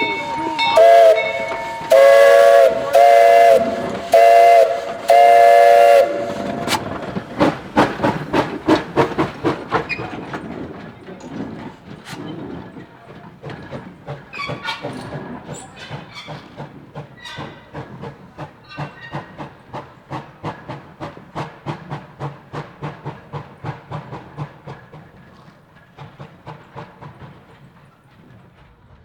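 Steam whistle of a 1927 Vulcan 0-4-0T narrow-gauge tank locomotive sounding for a road crossing: a short toot, then four loud blasts over the first six seconds. The locomotive then works away with steady exhaust chuffs, about three a second, fading toward the end.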